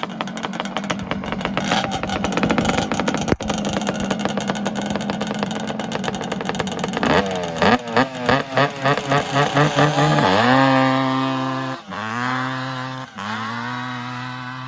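ATV engine running rough and fast, then about halfway through blipped rapidly about four times a second, then held at steady high revs with two brief drops in pitch near the end.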